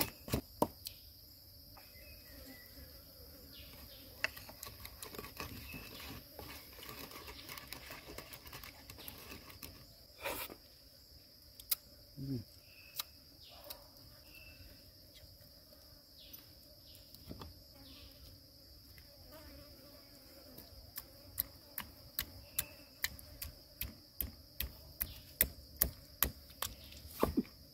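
Steady high insect chirring throughout. Over it come runs of sharp, rhythmic knife chops on a board, about three strokes a second: a few at the start and a longer run in the last several seconds.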